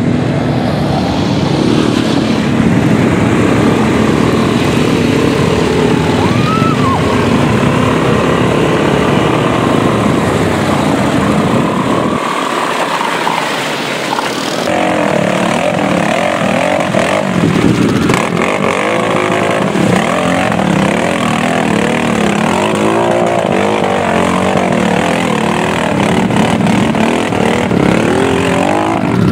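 Quad bike (ATV) engines running and revving, pitch rising and falling, with a short dip about halfway through.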